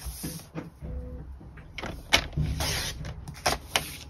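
Cardstock being cut to size on a paper trimmer: the blade carriage slides along its track in short swishes, with a few sharp taps and rustles as the paper is handled.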